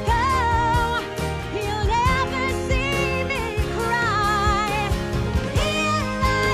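Pop song playing loudly: a singing voice with vibrato over a steady beat.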